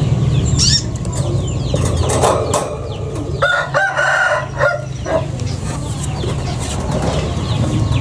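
Chickens clucking, with a rooster crowing about three and a half seconds in. A few high, quick chirps from small birds, over a steady low hum.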